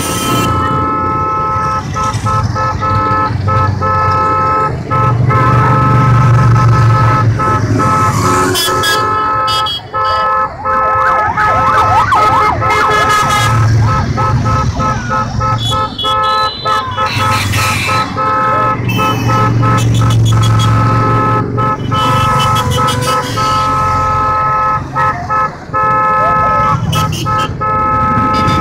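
A column of motorcycles riding past, with horns sounding in long, nearly continuous blasts and engines revving up now and then.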